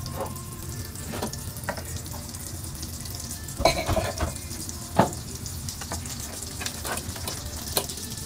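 Butter sizzling as it melts in a hot nonstick wok, a steady frying hiss. A few sharp clatters of utensils against pots cut through it, the loudest about four and five seconds in.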